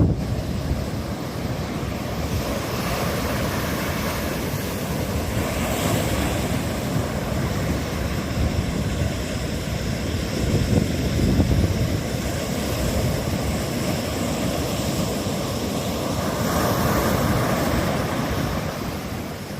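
Ocean surf breaking and washing in a pre-typhoon swell, a steady rush that swells several times as waves break, with wind rumbling on the microphone.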